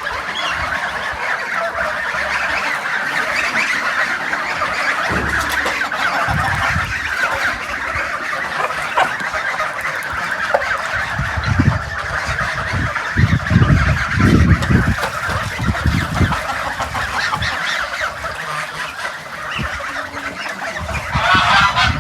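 A large flock of poultry calling all at once in a dense, continuous din of honks and cackles, with some low thumps around the middle.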